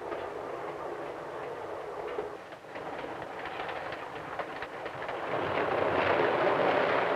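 Passenger train running on the rails, its wheels clicking over the rail joints, growing louder about five and a half seconds in.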